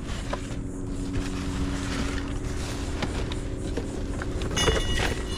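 Hands rummaging through plastic trash bags and cardboard in a dumpster, with rustling, over a steady mechanical hum and low rumble. A brief high squeak comes near the end.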